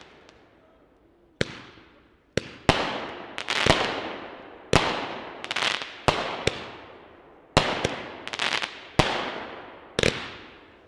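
A 28-shot, 200-gram fireworks cake (Hot Fireworks' Blackbeard's Cannon) firing: about fifteen sharp bangs of shots and bursts in quick, uneven succession, starting about a second and a half in, each trailing away before the next.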